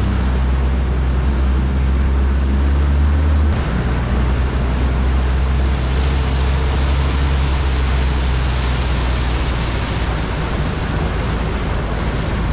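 4x4 vehicle's engine running under load as it drives up a rocky riverbed, under a steady rushing noise. The engine note changes abruptly about three and a half seconds in.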